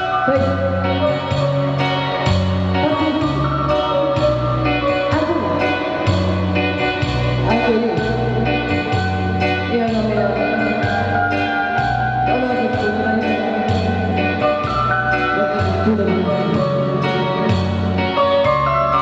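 A woman singing live over a band accompaniment, her voice gliding through a melody above a bass line of short, evenly repeated notes.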